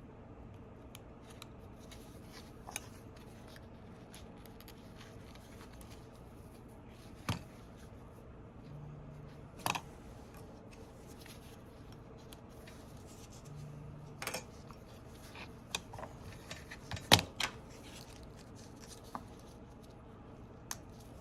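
Scattered small clicks and taps from handling tools and parts on an opened smartphone during a battery replacement, the loudest about 17 seconds in, over a faint steady hum.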